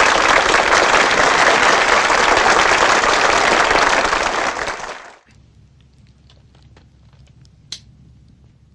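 Audience applauding, cut off abruptly about five seconds in. A faint low hum with a few light clicks follows.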